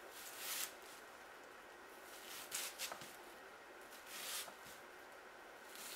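Chef's knife cutting into a whole onion on a wooden cutting board: three faint, crisp cuts a second or two apart.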